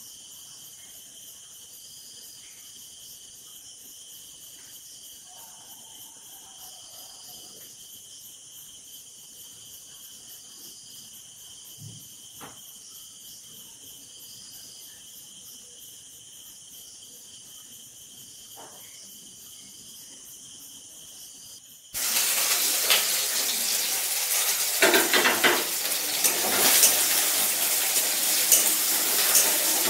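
Crickets chirp steadily in a high, rapidly pulsing drone. About 22 seconds in, a sudden cut brings a much louder dense hiss with scattered clicks and knocks.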